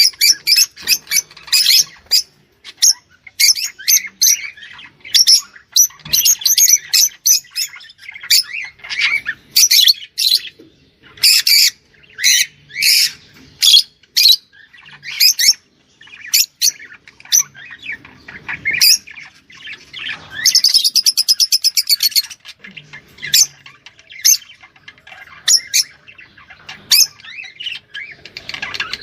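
Small cage songbird singing: a busy run of short, high chirps and calls, broken by a fast trill about two-thirds of the way through.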